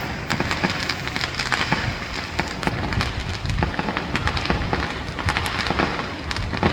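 Fireworks going off in a dense, continuous crackle of many sharp pops.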